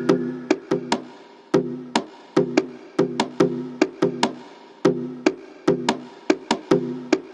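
Background music with a steady, fast percussion beat of sharp clicks over pitched notes.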